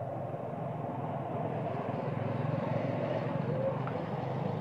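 A steady distant engine drone that swells gradually, loudest near the end.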